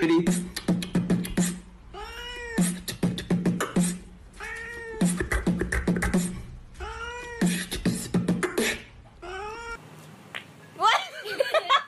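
A man beatboxing quick runs of mouth clicks over a low hum, with a cat answering each run with a rising-and-falling meow, the pattern repeating about every two and a half seconds. After a cut near the end, a short, louder wavering call.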